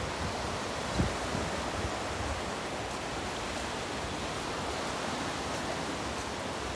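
Steady rush of small waves breaking along a sandy beach, with a brief low thump about a second in.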